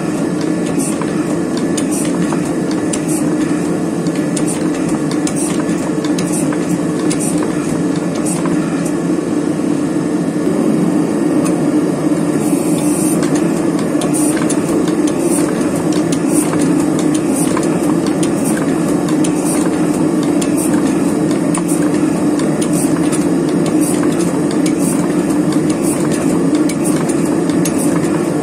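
Gas forge burner running with a steady roar while a steel billet held in tongs heats in the chamber.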